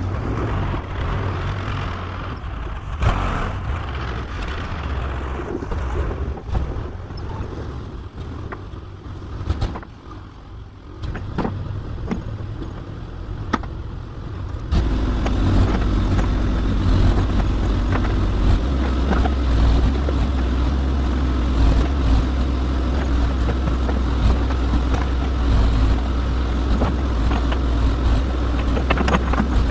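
Old backhoe's engine running while it digs. It works at a lower level through the middle with a few sharp knocks, then throttles up abruptly about fifteen seconds in and holds there.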